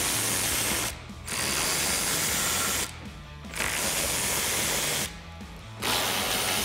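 Hand ratchet with a small extension and 10 mm socket clicking rapidly as it turns out the 10 mm bolts holding the front air dam. The clicking comes in four runs of a second or two each, with short pauses between.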